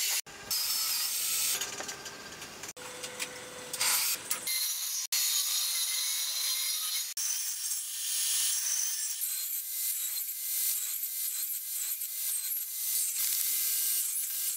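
Table saw blade cutting a series of closely spaced kerfs across a hardwood board, pass after pass. The sound breaks off abruptly several times in the first few seconds.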